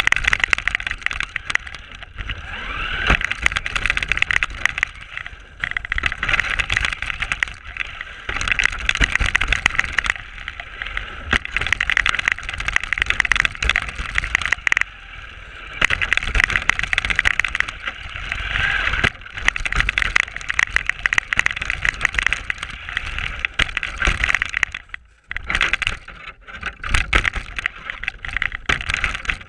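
RC car driving through snow, heard from a camera mounted on it: its motor and drivetrain whine rising and falling with the throttle over a low rumble of bumps, letting off briefly twice, about halfway through and again near the end.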